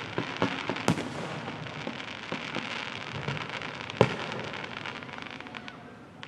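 Fireworks crackling with a dense run of small pops, and two sharp bangs, one about a second in and one about four seconds in. The crackle fades away near the end.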